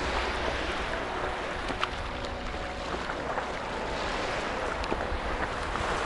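Sea water lapping around a stand-up paddleboard and small waves washing onto a pebble shore, with wind rumbling on the microphone.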